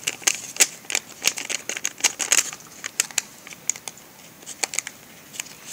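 Crinkling and clicking of small printed sample packets being handled and turned over, in quick irregular crackles that thin out about halfway through.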